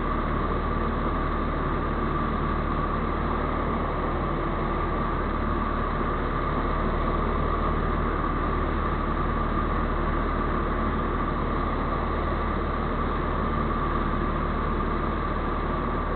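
Ultra Cruiser ultralight's engine and propeller running at a steady speed in flight, an even drone heard from the cockpit.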